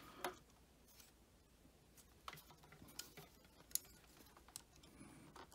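Faint, scattered clicks and ticks of a plastic LED ring holder being pinched and jiggled onto a CNC spindle motor, with a sharper click at the very end.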